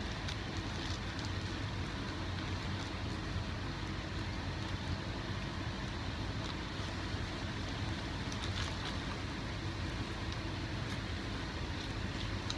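Steady outdoor background noise with a low rumble, and a few faint short clicks in the second half.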